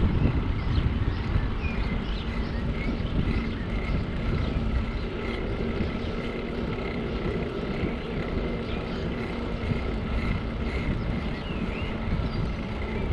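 Riding noise from a bicycle on asphalt: wind on the action camera's microphone and tyre rumble, with a steady hum and a few faint, short high chirps.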